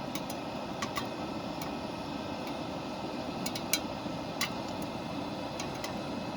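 Popcorn kernels popping in hot oil in a small Dutch oven: a dozen or so scattered sharp pops over a steady hiss.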